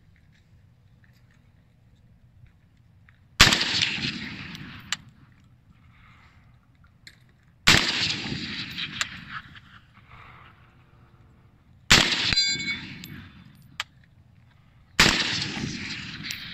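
Four single shots from an HK G3A3 7.62×51mm battle rifle, about four seconds apart, each with a long echoing tail. Just after the third shot a steel target rings with a short metallic ding where the bullet strikes it.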